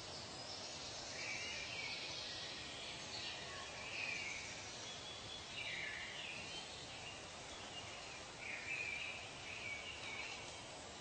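Outdoor nature ambience: a steady background hiss with short high-pitched wildlife calls every second or two, loudest about four and nine seconds in.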